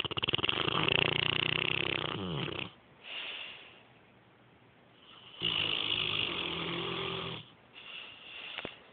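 Snoring: a long, rattling snore at the start, a short softer one about three seconds in, another long snore from about five and a half to seven and a half seconds, and a short one near the end.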